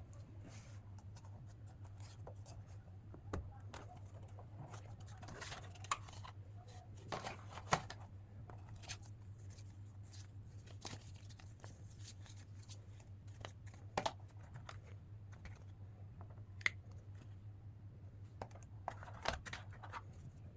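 Smartphone retail box and its plastic wrapping handled by hand: scattered clicks, scrapes and short rustles and tears of cardboard and film at irregular intervals, over a steady low hum.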